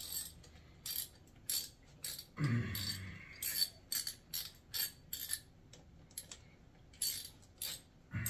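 Socket ratchet clicking in short strokes, about two a second, as the transmission oil drain bolt on a dirt bike's engine case is tightened back in. A longer, lower rasp about two and a half seconds in.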